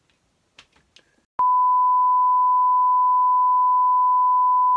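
A single steady electronic beep tone, one unchanging high pitch, starting abruptly about a second and a half in and holding for over three seconds before cutting off.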